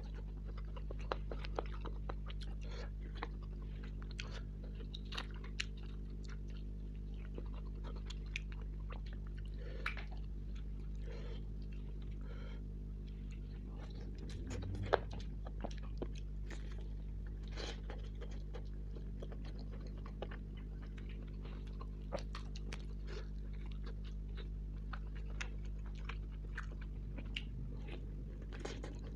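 Close-miked chewing and biting of tandoori chicken: wet mouth clicks, smacks and crunches, with one sharper click about halfway through, over a steady low hum.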